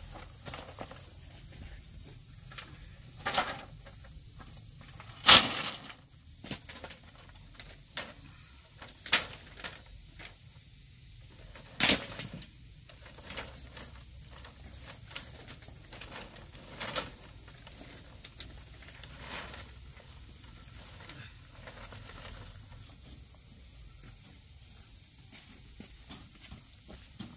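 Insects trilling steadily at two high pitches, with a few scattered sharp knocks, the loudest about five seconds in.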